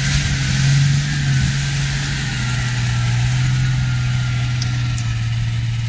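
Toyota Land Cruiser 80's diesel engine under load, pulling through mud: it runs at raised revs for about two seconds, then eases to a slightly lower, steady pitch.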